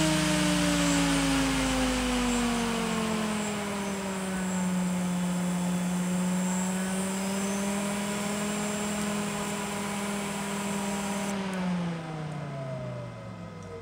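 Delta THD1348HE 48-volt DC brushless fan slowing down under PWM control: air rush and a blade whine that falls in pitch, then holds steady. A little after 11 seconds in the fan is switched off, the hiss stops, and the whine glides down as the fan coasts toward a stop.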